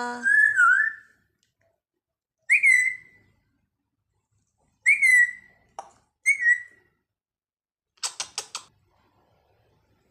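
African grey parrot whistling. A wavering whistle comes at the start, then three short notes that fall in pitch, spaced a couple of seconds apart, and a quick run of clicks near the end.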